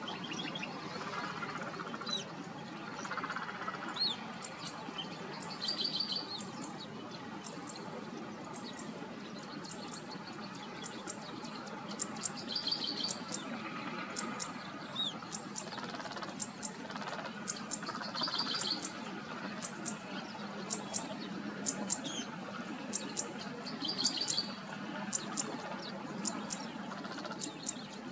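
Small songbirds chirping, one repeating a short high trilled phrase about every six seconds, with quick high chirps growing busier in the second half, over a steady background hiss.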